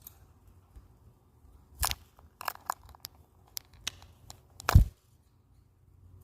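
A run of sharp clicks and crackles, about a dozen over three seconds, ending in a heavier knock with a low thud.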